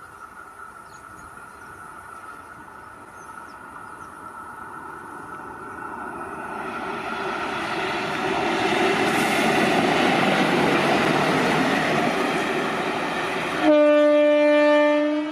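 Indian Railways locomotive approaching and passing, its rail noise rising to a loud rush, then sounding its horn in one steady blast of about a second and a half near the end that cuts off sharply.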